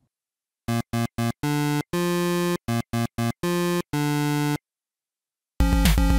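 Electronic synthesizer jingle: three short notes and then two longer held ones, played twice, followed by a pause of about a second. Near the end a fuller synthesizer tune with a bass line begins.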